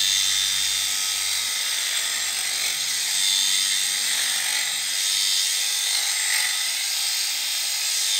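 Electric sheep-shearing handpiece running with a steady high-pitched buzz, its comb and cutter shearing a ram lamb's fleece.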